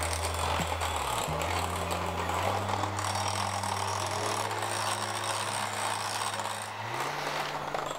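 Electric mixer running steadily, its beaters whirring through creamed butter, sugar and eggs as the eggs are beaten in.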